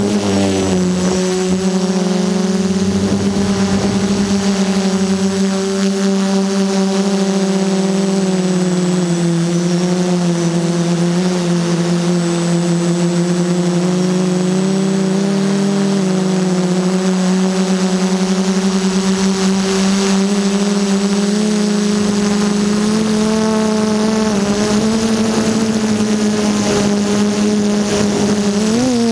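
DJI F330 quadcopter's brushless motors and propellers humming steadily, heard from the camera carried on the craft. The pitch drifts slowly up and down with throttle and wobbles quickly near the end.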